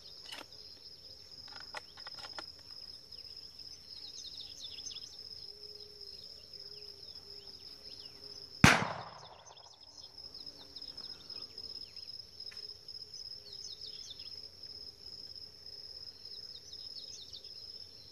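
A single shotgun shot at doves about halfway through, a sharp report with a ringing tail, over a steady high buzz of insects.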